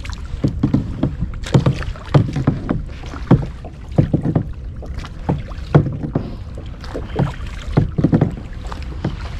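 Kayak paddles dipping and splashing in the water in quick, uneven strokes, about two a second, over a low rumble of wind on the microphone.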